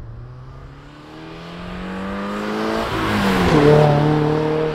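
Toyota GR86's naturally aspirated 2.4-litre flat-four engine accelerating hard as the car drives past, its note climbing steadily. About three seconds in the pitch drops as the car sweeps by, loudest just after, with tyre and rushing air noise.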